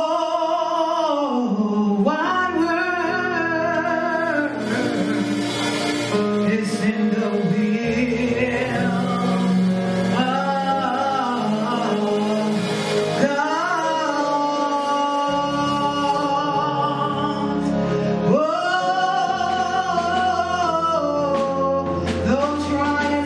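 A woman singing a gospel solo into a microphone. Her long held notes slide up and down in pitch, over sustained low instrumental chords.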